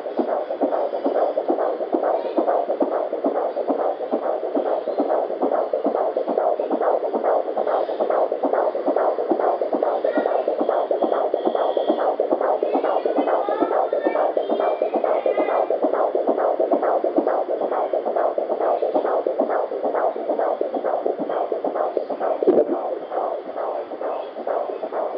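Fetal heartbeat at 18 weeks heard through an ultrasound Doppler: a fast, even run of pulses with no break.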